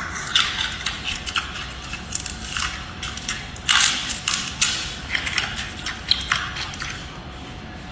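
A panda crunching food, irregular crackly bites, the loudest about four seconds in.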